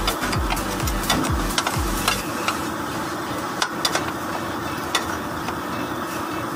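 Background music with a deep, evenly repeated beat that stops about two seconds in. A steady hiss with scattered sharp clicks and taps runs underneath.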